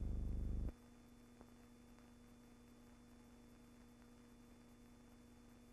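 Loud, low electrical hum that cuts off abruptly under a second in. A faint steady hum with a few faint clicks remains.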